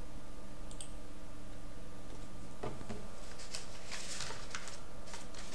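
Steady low electrical hum. From about halfway in, a scatter of light clicks and rustles, like handling or movement near the microphone.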